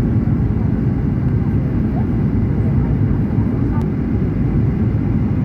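Airplane engine noise: a steady low drone that holds level with no change in pitch or loudness.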